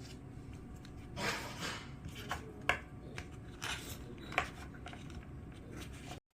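Rustling handling noise with a few sharp clicks over a low hum; the sound cuts off abruptly near the end.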